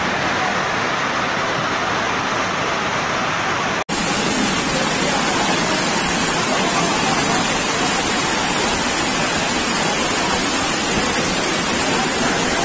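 Flash floodwater rushing down a street in a steady, loud rush of water. The sound cuts out for an instant about four seconds in, then carries on.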